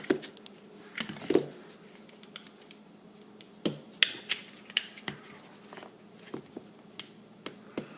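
Sharp clicks, taps and light scrapes of a Glock 19 pistol's frame and small parts being handled during disassembly, a dozen or so irregular knocks with the loudest cluster about four seconds in.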